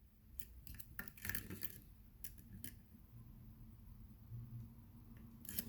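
Faint metallic clicks and scraping of a hook pick working the pins inside a pin-tumbler challenge lock with security pins, its plug held in a very deep false set. A cluster of light ticks comes in the first two seconds, a couple more around two and a half seconds, and a few more near the end.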